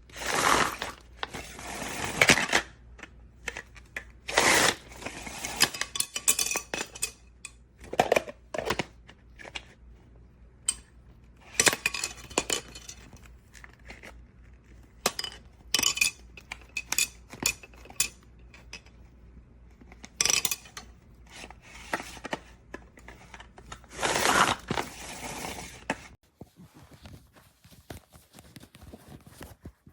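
Handling of a plastic food chopper: irregular clatter, clicks and knocks of its bowl, lid and blades, with several longer scraping stretches of a second or two.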